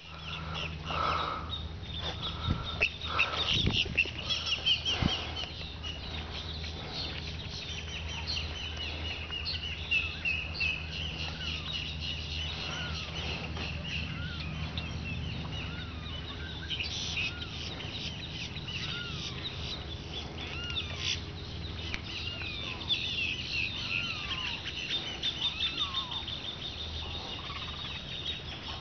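Many birds chirping and calling at once, a dense chorus of short rising-and-falling calls, over a steady low hum. A few knocks sound in the first five seconds.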